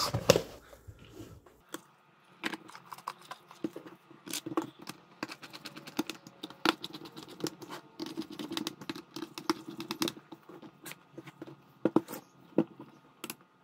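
Small screwdriver driving screws into the plastic case of a handheld RF signal generator, with a rapid, irregular run of small clicks and ticks. A few louder knocks near the end as the plastic box is handled and set down.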